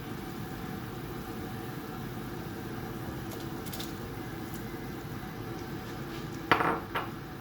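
A pot of seafood soup boiling steadily on the stove, with a brief clatter near the end.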